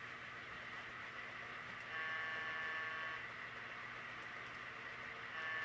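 Diesel locomotive horn sound from an HO scale model train, sounding two blasts of a chord about a second long each; the second starts near the end. Under it is a faint steady hum.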